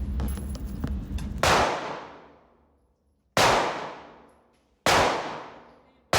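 Three single gunshots, fired one at a time about one and a half to two seconds apart, each ringing out and dying away over about a second; a fourth shot comes right at the end. Steady low background rumble is heard before the first shot.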